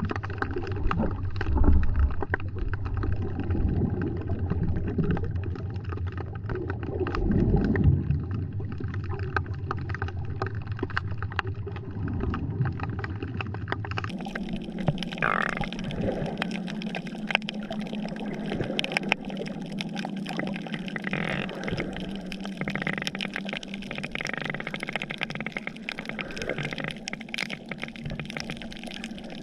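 Water sloshing and gurgling against an action camera's microphone, with a low rumble and fine crackling. The sound changes abruptly about halfway through, turning brighter over a steady low hum.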